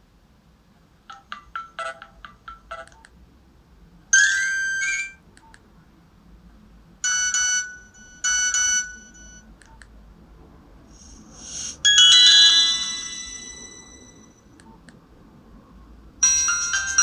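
Nokia 105 (2013) mobile phone playing a run of its built-in short tones one after another: a quick series of short beeps about a second in, a chiming tone, two short tones, a swelling whoosh into a ringing chime that dies away, then a busier many-note ringtone starting near the end.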